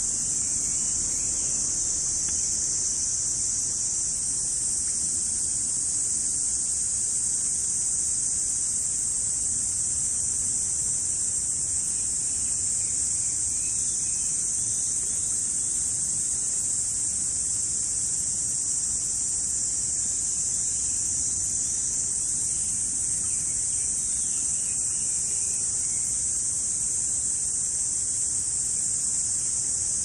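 Steady, high-pitched insect chorus, an unbroken buzzing drone with no change in level.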